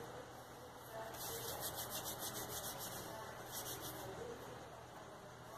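Palms rubbing together in quick back-and-forth strokes, rolling a small piece of biscuit modelling clay into a roll. There are two spells of rubbing, one about a second in lasting a second or so, and a shorter one about three and a half seconds in.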